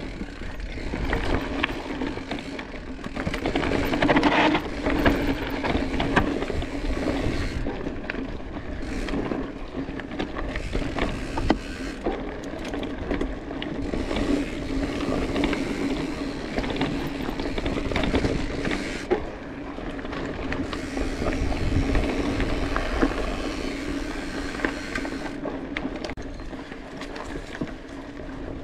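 Specialized Epic S-Works mountain bike being ridden over a dirt trail: steady tyre noise with the chain and frame clattering over bumps, and the rear hub's freewheel ratchet buzzing when coasting.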